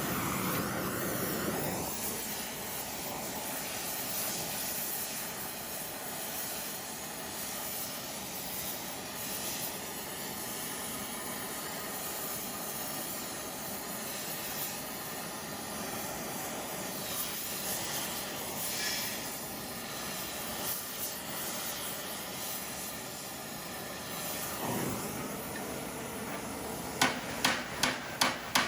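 A steady hiss runs through most of the stretch. Near the end, a blacksmith's hammer starts striking metal on the anvil in a quick, even rhythm of about two and a half blows a second.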